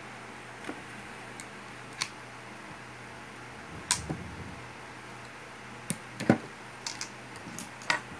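Scattered short clicks and light knocks of pliers and small parts handled on a wooden speaker baffle while the wiring is worked on, the loudest about two-thirds through, over a faint steady hum.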